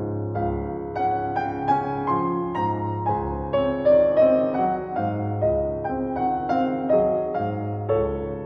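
Gentle solo piano music: a slow melody over low bass notes struck about once a second.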